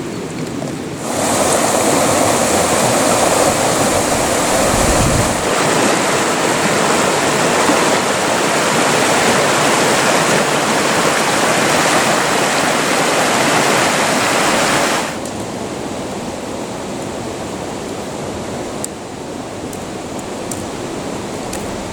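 Steady rushing of a mountain stream. It grows louder about a second in and drops back to a softer rush about two-thirds of the way through.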